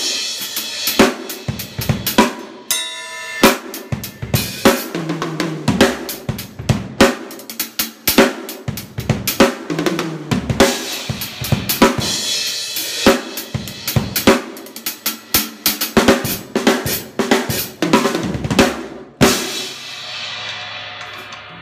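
A compact drum kit played in a busy run of grooves and fills on snare, bass drum, hi-hat and cymbals. Near the end it stops on a final cymbal crash that rings and slowly fades.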